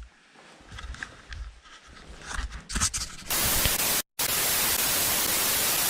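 Loud, even TV-static hiss from a video-glitch transition effect. It starts about three seconds in and drops out for an instant about a second later. Before it there is quieter low rumbling with a few knocks.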